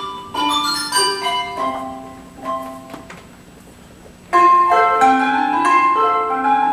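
English handbell choir ringing a melody, each note struck and ringing on. The notes thin out and die down about three seconds in, then the full choir comes back in loudly with many bells at once just after four seconds.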